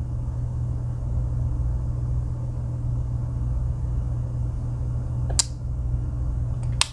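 Steady low hum, with a sharp click about five and a half seconds in and a quick double click near the end: the tools of a Victorinox Rancher Swiss Army knife snapping on their springs as they are handled.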